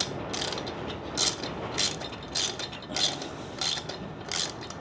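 A 1/2-inch ratchet wrench clicking in repeated strokes, about one every half second, as it tightens a nut onto a long bolt.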